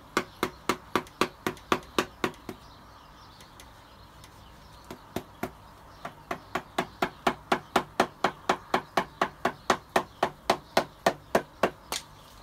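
Rapid mallet taps, about four a second, on the cam cover of a Toyota 4A-GE engine to break it free of the sealant it is stuck down with. They come in a short run, then a pause with two single taps, then a longer run.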